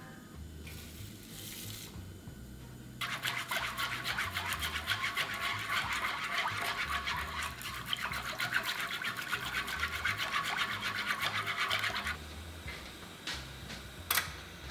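Coarse sea salt poured into a pan of water with a short hiss, then a wooden spatula stirring fast, rasping the coarse salt grains against the pan bottom in a dense run of scraping strokes for about nine seconds. A single sharp click comes near the end.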